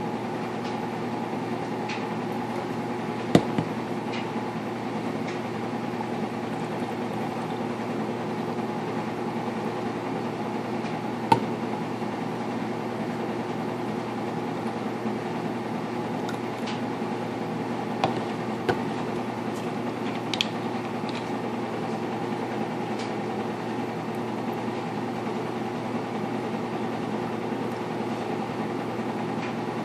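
Washing machine running: a steady droning hum with several steady tones in it. A few sharp clicks and knocks of plastic baby bottles being handled on a counter break in now and then, the loudest about three seconds in and near the middle.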